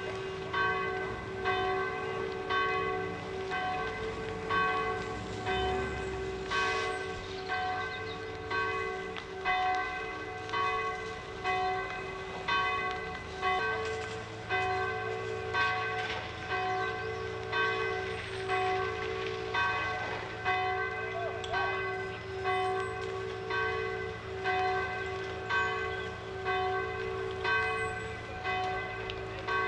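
Church bells ringing, struck in a steady, even rhythm about once a second, their tones ringing on between strokes.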